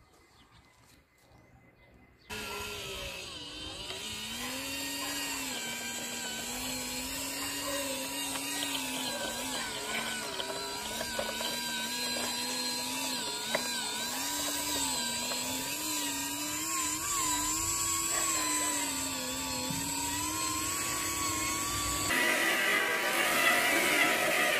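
RC model truck's electric motor and gearbox whining as the tractor unit pulls a loaded lowboy trailer, the pitch rising and falling with the throttle. About two seconds in the whine starts suddenly; near the end it cuts abruptly to a louder, brighter sound.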